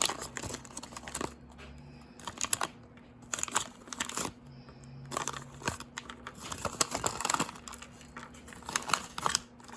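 Plastic packaging of a Mini Brands capsule ball crinkling and tearing as it is opened by hand, in irregular spells of crackling.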